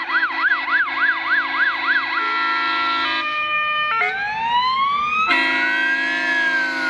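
Scania P360 GBARt fire engine on an emergency run: its siren goes in a fast yelp, about three cycles a second, then changes about four seconds in to a slow rising wail. Steady, loud horn tones sound beneath the siren, swelling about five seconds in.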